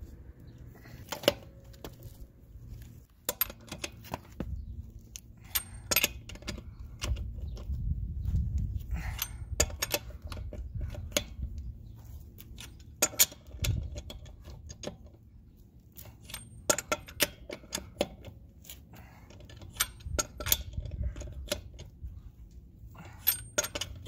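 Metal clicks and clinks of a breaker bar's socket being fitted onto and turned on a truck wheel's lug nuts during their final tightening, scattered irregularly with short pauses between nuts.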